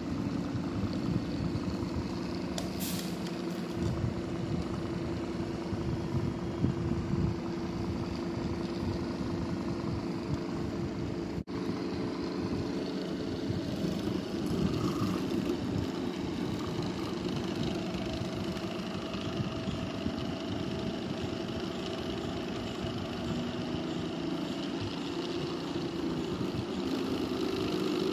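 Homemade dual-stator, dual-rotor axial-flux BLDC motor running on its controller with both stators wired in parallel: a steady electric hum with a few held tones, briefly cutting out about eleven seconds in.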